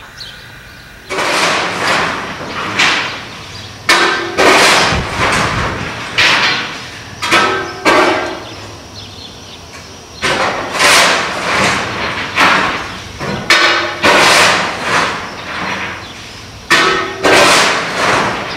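Repeated heavy banging on metal, irregular blows one every second or so, each ringing and echoing in a large locomotive engine house.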